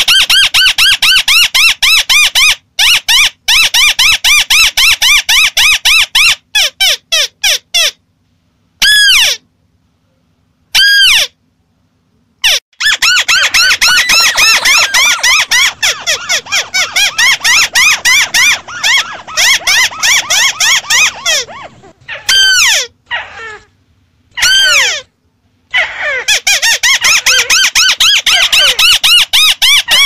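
White-browed crakes giving their chattering call: long, fast runs of repeated down-slurred notes, about several per second, broken by short silences around a quarter and three-quarters of the way through. A lure recording made to draw other crakes in.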